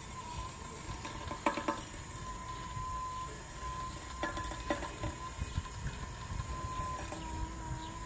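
Small 12 V DC gearmotor of a sliding-gate opener running, a steady high whine over a low rumble, with a few light clicks about a second and a half in and again four to five seconds in.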